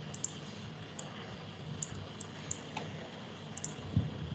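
Scattered light clicks of a computer mouse, about eight at irregular intervals, as slide annotation tools are switched between eraser and pen, over faint steady hiss. A soft low thump comes near the end.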